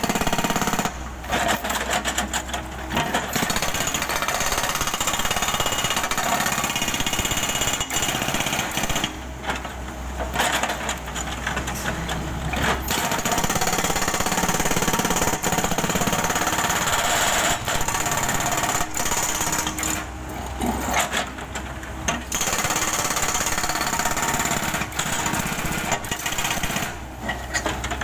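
Hydraulic breaker on a Komatsu PC78US excavator hammering rapidly into asphalt road surface. It stops briefly a few times as the chisel is repositioned, leaving the excavator's diesel engine humming alone.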